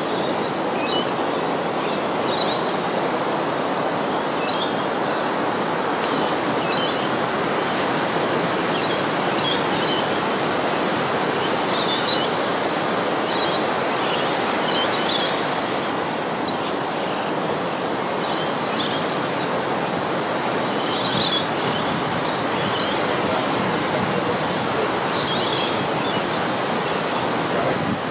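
Ocean surf breaking on a sandy beach: a steady rushing wash, with brief high chirps every few seconds.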